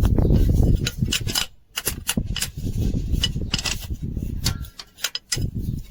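Spanner and socket clinking and tapping on metal while the nuts holding a truck's starter motor are undone, over a low rumble that is heaviest in the first second and a half.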